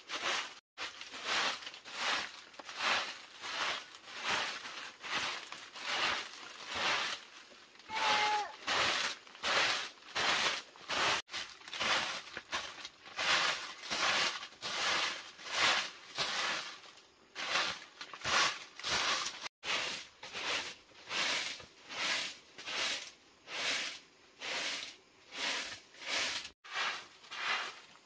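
A short broom of dried leaves swept in quick strokes across packed dirt ground. It makes a steady rhythm of scratchy swishes, about three every two seconds.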